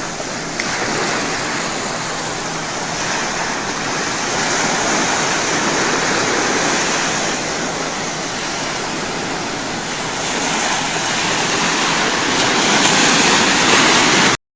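Ocean surf: waves breaking and washing on a beach in a continuous rush that swells and eases, then cuts off suddenly near the end.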